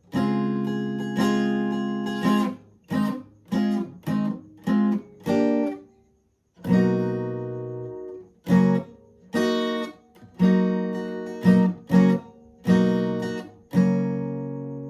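Guitar tuned half a step down playing a repeated chord riff: barred chords left to ring alternate with short, choppy chord stabs, with a brief pause about six seconds in.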